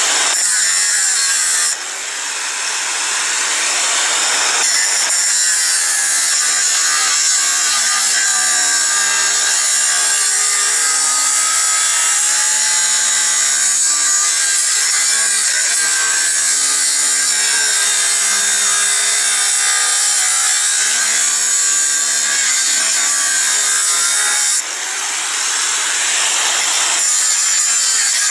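Angle grinder cutting into 6 mm steel plate, a loud steady grinding that runs on under load. Its level dips briefly and climbs back twice, about two seconds in and near the end.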